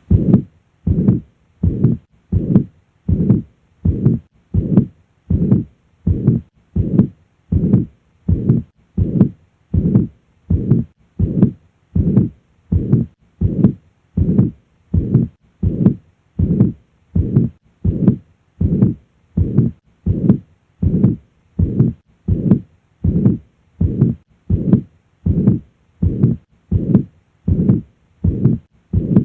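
Heart sounds at the cardiac apex heard through a stethoscope: a regular heartbeat, about three beats every two seconds, with the murmur of mitral regurgitation filling each systole.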